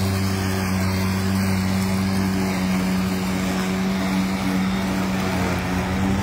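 EGO battery-powered push mower's electric motor and blade running at a steady pitch while cutting grass, a constant hum.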